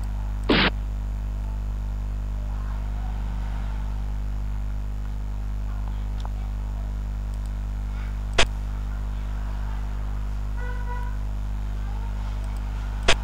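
Steady low electrical hum, with three short sharp clicks of xiangqi pieces being moved on a computer board: a slightly longer one about half a second in, one about eight seconds in and one near the end.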